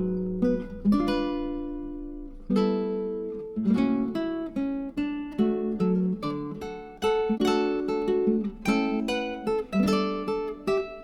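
Background music: acoustic guitar strumming and picking chords. A chord rings out and fades about a second in, then the strumming picks up again.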